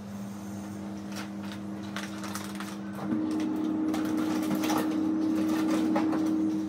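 Refrigerator-freezer humming steadily at two low pitches, louder from about three seconds in, with light clicks and handling noises as things are put into the freezer.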